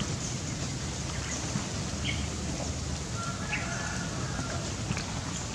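Outdoor ambience: a steady noisy hiss with a few brief high chirps, about two seconds in, around three and a half seconds, and again at the end.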